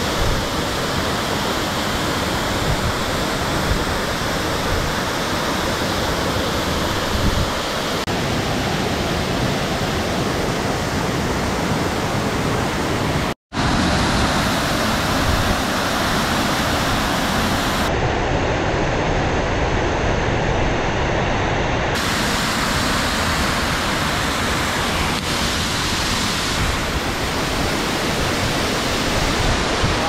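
Waterfall in full flow, its water pouring over rock ledges into the pool below with a steady, loud rush. A momentary dropout to silence about thirteen seconds in.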